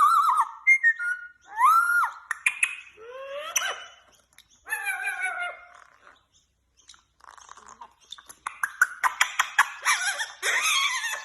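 Parrot whistling and calling: a run of rising and falling whistles, a short lull about halfway, then a fast string of clicks mixed with calls near the end.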